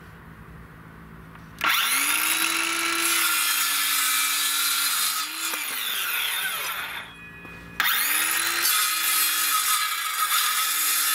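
Cordless circular saw starting up about two seconds in, its motor whining up to speed and cutting through wood. It is released and winds down about seven seconds in, then starts again after a brief pause for a second cut.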